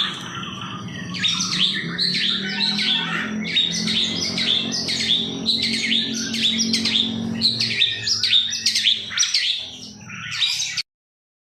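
Long-tailed shrike (pentet) singing a rapid chattering run of sharp, repeated high notes, several a second, over a faint low hum; it cuts off suddenly near the end.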